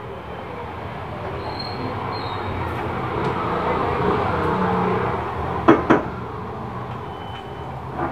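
Cooking at a gas stove with a saucepan: a steady rushing noise that swells toward the middle and eases off, with two sharp clinks of a spoon against the saucepan a little past the middle and another near the end.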